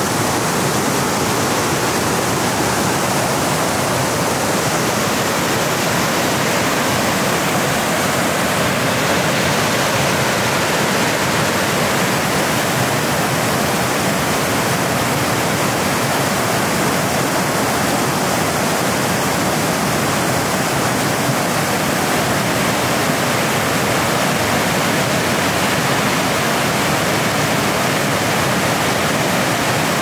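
Steady rush of a river cascade, white water tumbling down over rock ledges and boulders.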